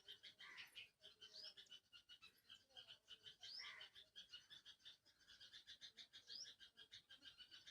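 Faint chorus of calling animals: a fast steady pulsing of about ten calls a second, with a short rising chirp every two to three seconds.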